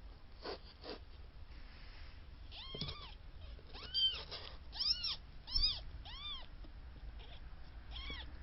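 Four-day-old kittens mewing: about six short, high-pitched cries, each rising and falling in pitch, most of them bunched together in the middle.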